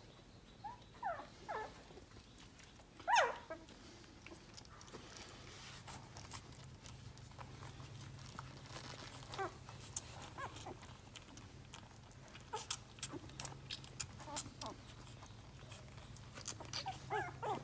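Newborn Thai Ridgeback puppies, eyes still closed, squeaking in short high cries that glide in pitch, the loudest about three seconds in. Small clicks and rustles come from the plastic bed sheet as they crawl and nurse, most of them in the second half.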